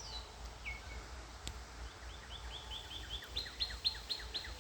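A songbird singing: a couple of single high whistled notes, then from about two seconds in a fast run of about a dozen down-slurred notes, some five a second. A steady low rumble lies underneath.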